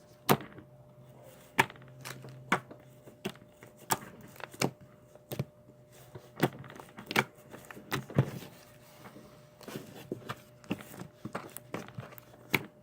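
Homemade slime poked with the fingers, giving a run of short, sharp clicks and pops, about one a second at first and closer together near the end.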